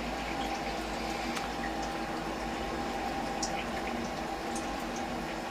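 Steady hum of milling-shop machinery with a few steady tones, and faint light clicks from a metal part being handled on the machine table.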